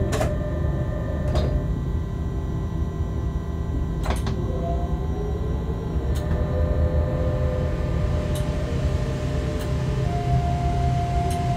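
Freight train heard from the locomotive cab while running: a steady low rumble with several steady electrical tones, and a whining tone that shifts in pitch and grows louder near the end. About seven sharp clicks at uneven spacing run through it.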